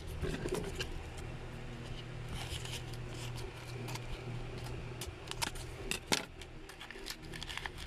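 Paper and plastic packaging handled by hand: soft rustling with scattered sharp clicks, the loudest a few between five and six seconds in, over a faint steady low hum.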